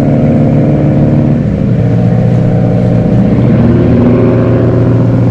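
Pilot boat's engine running close alongside, steady and loud, its note shifting about a second and a half in and again about three seconds in.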